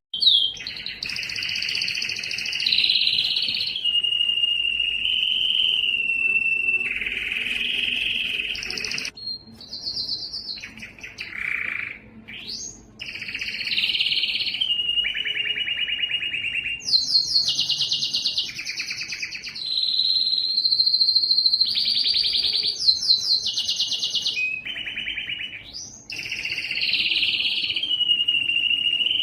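Domestic canary singing a long, continuous song: fast trills alternate with held whistled notes and quick rising and falling glides, with a few short breaks.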